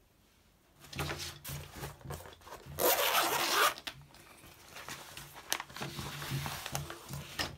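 Zipper of a fabric tennis racket cover being pulled open in several strokes, with rustling of the cover as it is handled; the longest, loudest zip comes about three seconds in.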